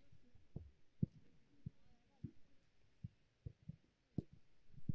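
Soft, irregular thuds of footballs being kicked during shooting practice, roughly two a second.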